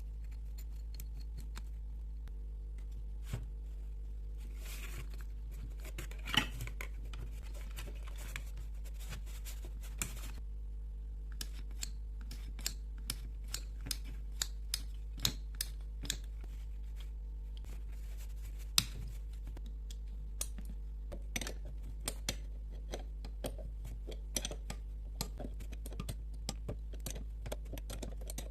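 Carburetor parts and hand tools being handled: irregular small clicks and taps, with a few seconds of scraping or rubbing about five seconds in and two sharper knocks. A constant low hum runs underneath.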